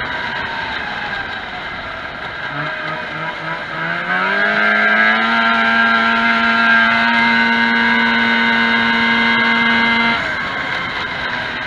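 Vintage 340cc stock-class racing snowmobile's two-stroke engine, heard onboard. It runs at low revs at first, climbs in pitch from about two and a half seconds in, and holds steady high revs flat out down the straight. The throttle is let off about ten seconds in.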